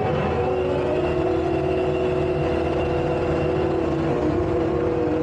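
Takeuchi tracked skid steer's diesel engine running steadily, holding an even pitch.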